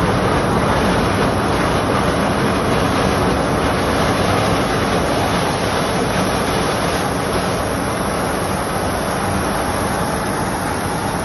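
4YZ-4S self-propelled corn harvester with a four-row corn header working through dry maize. Its engine and header run steadily while the stalks are cut, easing off slightly near the end.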